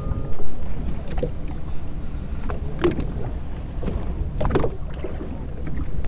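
Sea water slapping and splashing against a boat's hull in a few separate gushes, over a steady low rumble.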